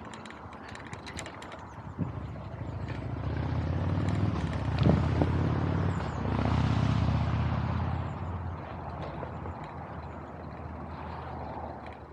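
A motor vehicle passes close by, its engine sound swelling, peaking twice and fading over about five seconds, over steady street noise.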